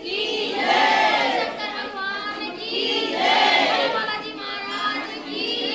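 A group of pilgrims' voices chanting or singing together in repeated rising-and-falling phrases, devotional chanting to the goddess.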